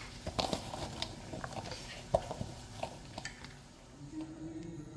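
Light kitchen clatter: a run of small knocks and clinks as chopped capsicum is gathered on a wooden chopping board into a glass bowl, then a spoon working in a glass bowl of marinated chicken near the end.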